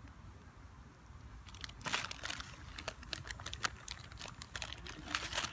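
Irregular crackling and rustling close to the microphone, thickest in two bursts about two seconds in and near the end, over a low steady rumble.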